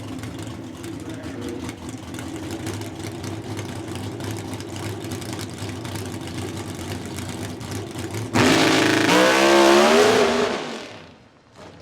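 Pro Stock drag car's V8 rumbling at low speed, then about eight seconds in it launches at full throttle. The engine pitch climbs in steps through its gear changes and fades quickly as the car runs away down the strip.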